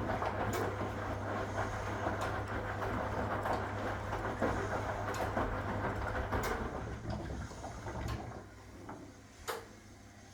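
1961 AEG Lavamat Noris washing machine running: a steady motor hum with rumbling and scattered clicks, dying away about seven to eight seconds in. A single sharp click follows near the end.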